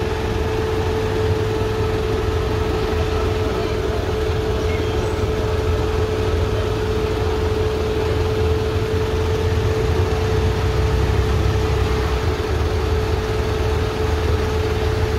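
Off-road vehicle engine running steadily while creeping along at low speed, a constant low drone with a steady whine over it.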